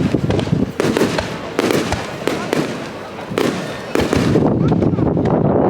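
Aerial fireworks bursting directly overhead in quick succession: many sharp bangs and crackles over a continuous rumble.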